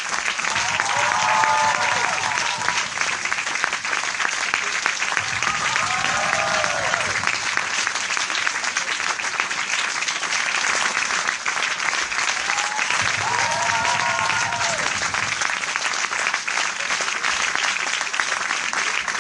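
Large audience applauding: dense, steady clapping from many hands. Three times a voice rises above it with a short cheer.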